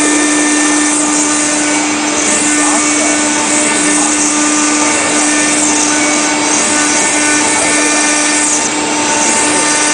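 NICECNC marble CNC router's spindle running steadily as its engraving bit cuts a relief into a marble slab under a water-coolant jet: a steady whine over a grinding hiss.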